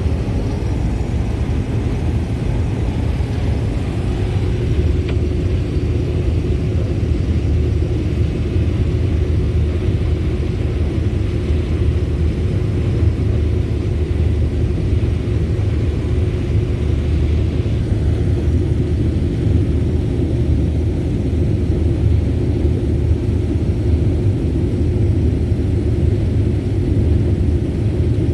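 Combine harvester running steadily under load as it harvests a row, a low even rumble with a steady hum, heard from inside the cab.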